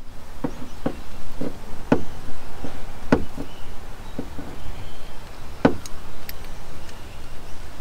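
Light plastic clicks and knocks from an Anderson power connector being handled and pushed into its socket on a dual battery box. They come irregularly, about one or two a second, with the sharpest around three seconds in and again near six seconds.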